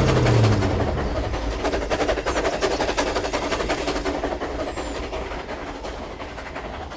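Train cars rolling by, their wheels clicking rapidly over the rail joints. The sound fades steadily as the train moves away.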